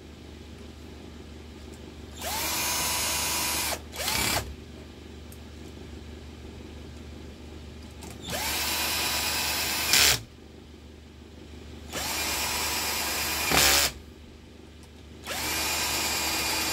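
Skil cordless drill-driver driving screws into a fan motor's bearing bracket in four runs of a second or two each. Each run spins up to a steady whine and ends in a brief louder burst as the screw goes home.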